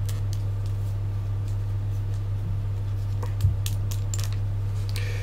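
Light clicks of plastic action figures being handled, with one small knock about three and a half seconds in, over a steady low electrical hum.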